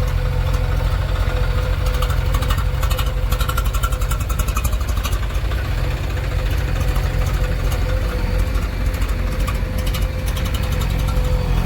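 Heavy diesel engine running steadily with a deep rumble and a steady high whine above it, and a spell of rapid light ticking a few seconds in.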